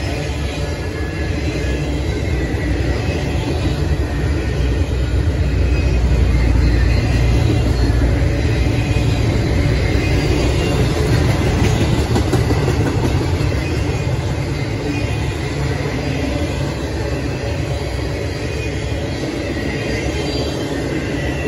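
Intermodal freight cars, double-stack containers and highway trailers, rolling past on steel wheels: a steady, loud rumble of wheels on rail. It swells about six seconds in and eases a little toward the end.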